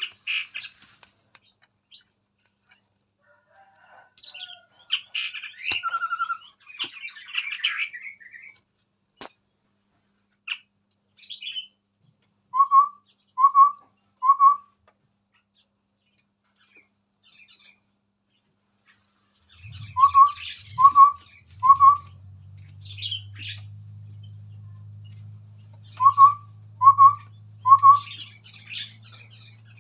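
Chestnut-rumped babbler calling: bursts of chattering notes and three groups of three short rising whistles, about one whistle a second. A steady low hum starts about two-thirds of the way through.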